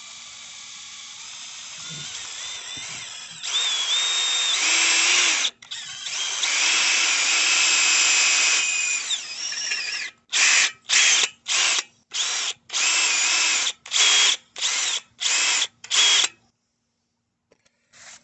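Electric drill boring a hole through the bike's thin metal, for the rear brake mount. The drill runs in two long loud stretches with a whine that shifts in pitch as the bit bites. Near the end it comes in about ten short trigger bursts.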